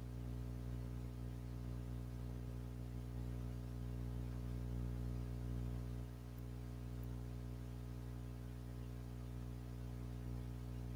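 Steady low hum that holds one unchanging pitch throughout.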